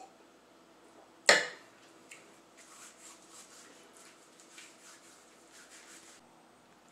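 A drink set down hard on a tabletop: a single sharp knock about a second in, then a few seconds of soft rustling and scraping from hands handling things on the table.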